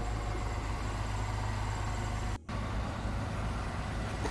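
Steady low engine rumble, with a momentary dropout about two and a half seconds in.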